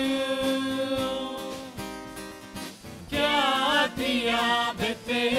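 A mixed group of men and women singing a Kannada Christmas worship song in unison, accompanied by acoustic guitar. A held note fades out about two seconds in, the music dips for about a second, then the singing picks up again with the next line.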